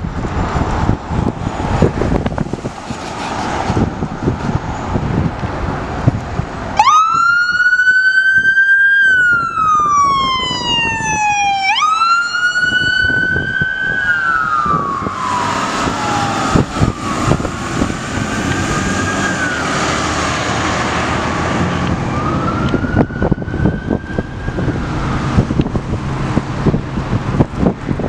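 Fire vehicle sirens wailing: a loud siren starts about seven seconds in, rising quickly and falling slowly in repeated cycles, then fainter overlapping wails continue as the vehicles drive off. Wind on the microphone and a fire truck's engine rumble underneath.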